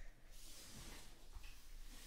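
Faint rustling and sliding of a stack of trading cards as hands square it up and slide it across the table.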